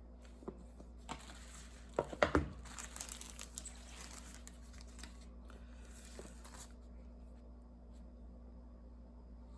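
Packaging of an iPhone 13 mini box being torn and crinkled by hand. A couple of light knocks come first, then a loud cluster of handling noise about two seconds in, followed by tearing and rustling that fades out by about seven seconds.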